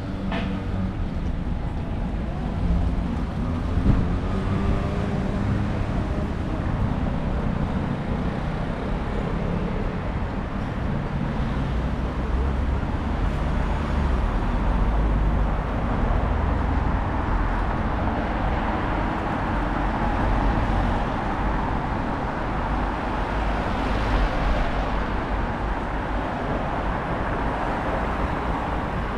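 Steady city road traffic, cars driving past, a little louder about halfway through.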